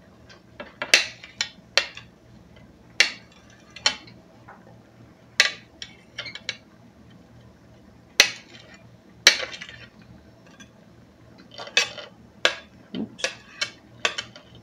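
A chef's knife scraping and tapping on a cutting board as chopped carrots and green onions are swept off it into a pot: about a dozen short, irregular clicks and scrapes.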